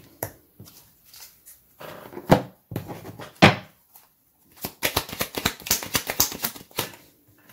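Oracle cards handled on a wooden tabletop: a couple of sharp taps as a card is set down, then a quick run of clicks as the deck is shuffled.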